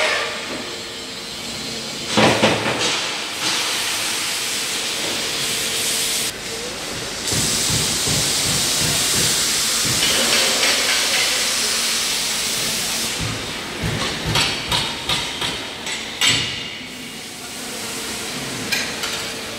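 Steady, crackling hiss of welding on a fire truck body's steel superstructure frame, followed about two-thirds of the way through by a quick, irregular run of sharp metal knocks.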